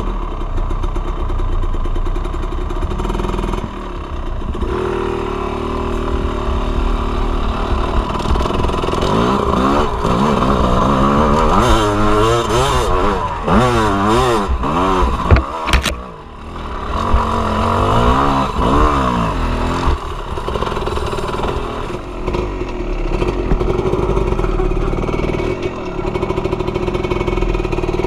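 Two-stroke enduro motorcycle engine ridden on a dirt trail, its revs rising and falling over and over, quickest in the middle, with a few sharp knocks and a short drop in revs around the middle.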